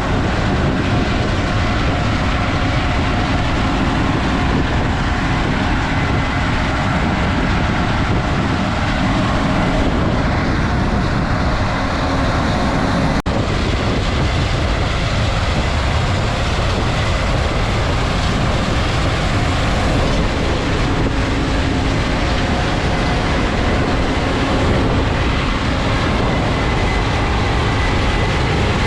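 Heavy harvest machinery (tractor and grain cart or combine) running steadily, with a continuous engine and mechanical rumble and clatter.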